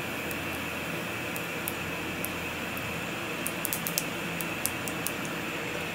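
Cumin seeds and whole spices sizzling in hot oil in a kadai: a steady hiss with scattered sharp pops and crackles, more of them about halfway through.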